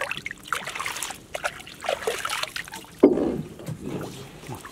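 Shallow water splashing and sloshing in irregular bursts as hands and a woven bamboo basket move through it, with the loudest splash about three seconds in.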